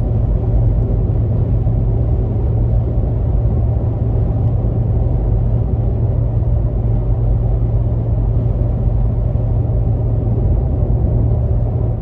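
Steady tyre and road noise inside the cabin of a Toyota Landcruiser Prado cruising at about 115 km/h on a dry motorway, from Falken Wildpeak AT3W all-terrain tyres (265/65/17 at 36 psi). It is a constant low drone, peaking at about 65 dB(A) on a meter.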